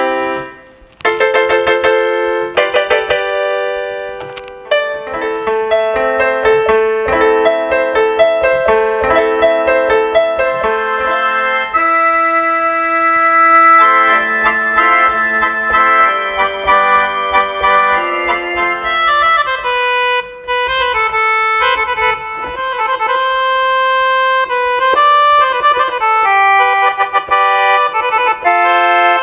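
Yamaha PSS-F30 mini keyboard playing a melody over sustained chords through its built-in speakers, after a brief pause near the start.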